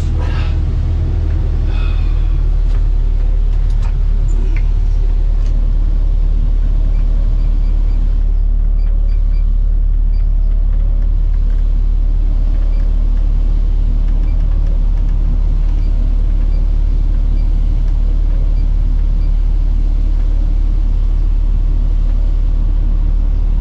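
Excavator's diesel engine running steadily, heard from inside the cab as an even low rumble, with the cab's air-conditioning fan blowing.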